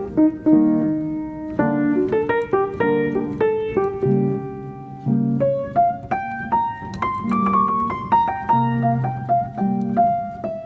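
Background piano music, a run of single struck notes and chords at a steady moderate pace.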